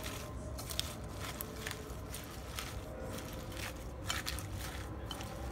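Dressed leaf lettuce being tossed with wooden chopsticks in a stainless steel bowl: soft, irregular rustling and squishing of the wet leaves, several strokes a second, with the odd light scrape.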